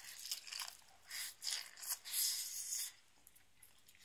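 Crisp crunching and rustling close to the microphone as a nori-wrapped hand roll of sushi is bitten and chewed. It comes in short irregular bursts, loudest about two seconds in, and dies down after about three seconds.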